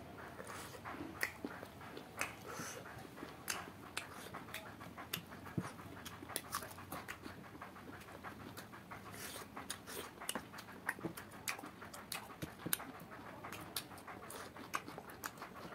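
Close-up eating sounds as a man chews cooked duck offal and feet by hand: many irregular wet mouth clicks and smacks, a few every second.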